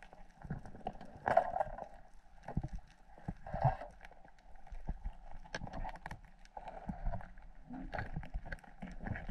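Underwater sound picked up by a diver's action camera: irregular clicks and knocks, with two louder bursts about a second and a half and three and a half seconds in.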